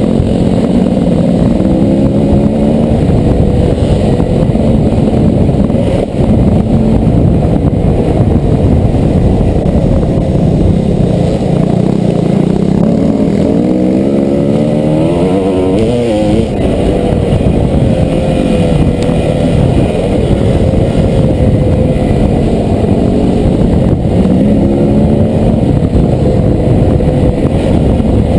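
Dirt bike engine heard close from a helmet-mounted camera while riding, its revs rising and falling with the throttle and gear changes, with a sharp climb in revs a little past halfway. A steady rush of wind and rough-ground noise runs underneath.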